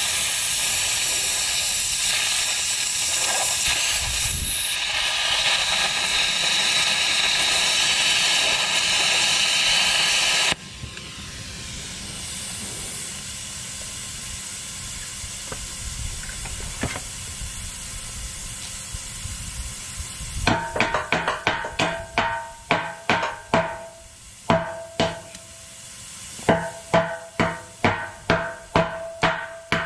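Plasma cutter arc hissing loudly as it cuts through the nut of a bulldozer blade's cutting-edge bolt, then cutting off sharply about ten seconds in, leaving a softer hiss. About twenty seconds in, a run of ringing hammer blows on steel begins, roughly two a second, as the cut nut is knocked off.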